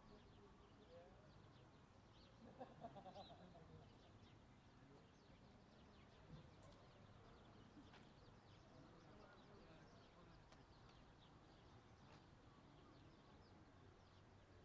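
Near silence: faint open-air platform ambience with scattered faint high bird chirps and a brief louder chirping call about two and a half seconds in.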